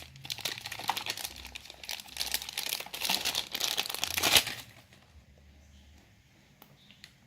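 Packaging crinkling and rustling as the box accessories are handled, with the loudest crackle about four seconds in. After that it goes much quieter, with a few light clicks.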